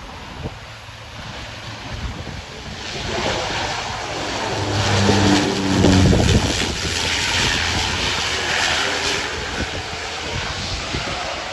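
Wind buffeting the microphone, then engine noise swelling about three seconds in and staying loud, with a brief low hum near the middle.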